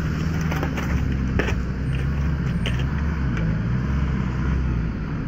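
A light box truck's engine running low and steady as the truck creeps over rubble on a rough dirt road. A few sharp clicks and knocks come in the first few seconds.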